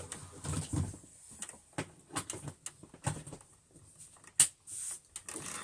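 Scattered clicks and knocks of a vacuum cleaner's power cord and plug being handled and plugged in, with one sharp click about four and a half seconds in.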